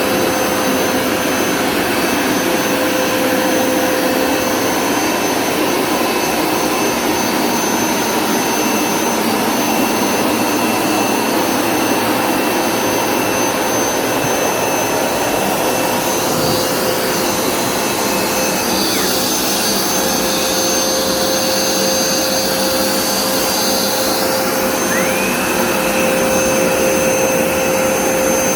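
Hoover Smartwash Pet Complete carpet cleaner running steadily, its motor and suction giving a constant whine. A little past halfway there are brief shifts in pitch.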